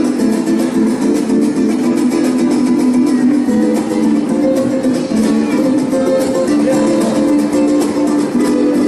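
Mariachi band playing, with rhythmic strummed guitars under held melody notes.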